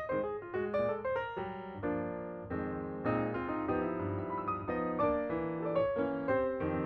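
Piano music: a quick melody of struck notes over chords, playing without a break.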